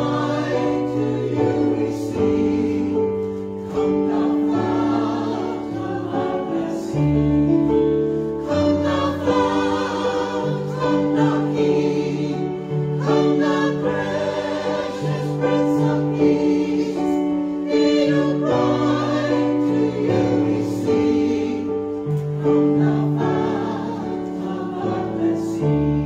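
Small mixed church choir of men and women singing a sacred piece in parts, with held chords throughout.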